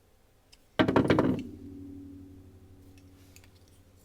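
Holt Haptic folding knife's blade flipped, a quick rattle of clicks ending in a knock against the stop, then a ringing tone that fades away over about two seconds.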